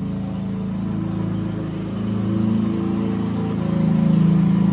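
An engine running steadily outside, a low drone that swells and is loudest about four seconds in.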